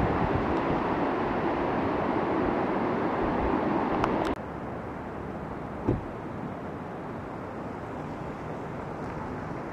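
Steady rushing of wind and surf, cut off abruptly about four seconds in. A quieter steady outdoor hiss follows, with one brief thump about six seconds in.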